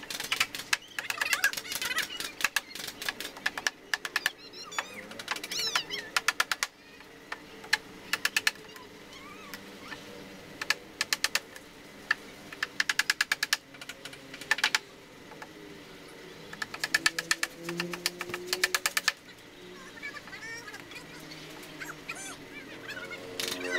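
Bursts of rapid sharp clicking, about ten clicks a second for a second or so at a time, from hand work on a bamboo bench frame.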